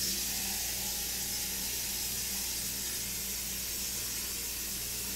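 Steady hiss from a pot of beans, beer and water heating over a gas burner, with a faint low hum underneath.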